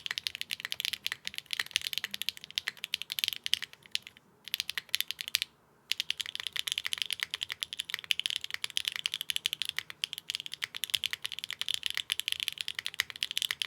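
65% mechanical keyboard with clacky linear switches being typed on fast, a dense stream of high-pitched clacks with brief pauses about four and five and a half seconds in.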